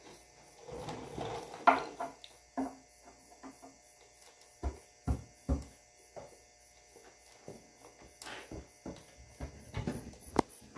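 Hand wrench clicking and knocking on metal while loosening an engine's oil pan bolts, in irregular taps and clinks, the sharpest a little under two seconds in and another near the end.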